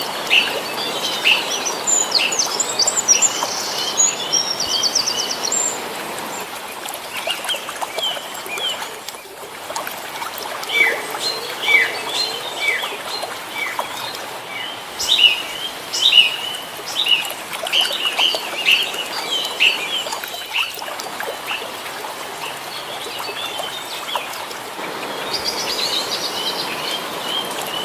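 Several birds chirping and calling outdoors: many short, quick chirps and downward-sweeping notes, with a fast high trill a couple of seconds in and again near the end, over a steady background hiss.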